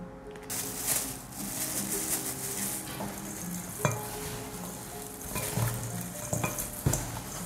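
Raw chicken pieces being mixed by hand with curry powder and spices in a stainless steel bowl: a wet squishing with the plastic glove rustling. It starts about half a second in, and a few sharp clicks come against the bowl.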